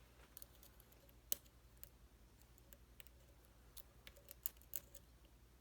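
Faint, scattered metallic clicks of lock-picking tools: a hook pick and tension wrench being handled and worked in a pin-tumbler lock. The loudest click comes about a second in.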